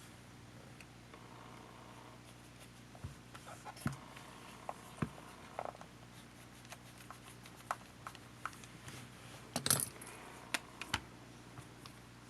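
Scattered small clicks and taps of a compact camcorder's parts and small tools being handled during disassembly, starting about three seconds in, with the loudest cluster of clicks a little before ten seconds.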